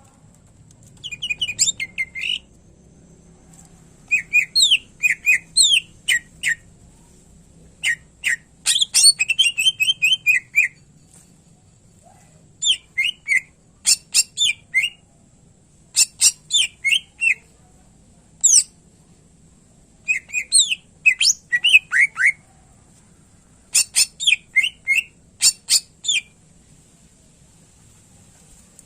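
Greater green leafbird (cucak ijo) singing in about seven bursts of rapid, varied chirps and whistles, each a second or two long, with short pauses between. It is a bird in full song that mixes in phrases copied from other birds. A faint steady high-pitched tone runs underneath.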